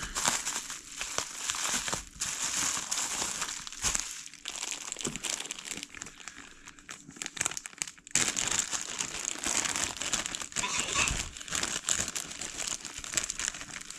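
Plastic packaging crinkling and rustling as it is handled to get at the cigars inside, with lots of small crackles; it eases off about halfway and then picks up again.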